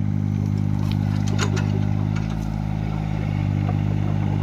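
LiuGong 9027F mini excavator's Yanmar diesel engine running steadily, with a few light clicks about a second in.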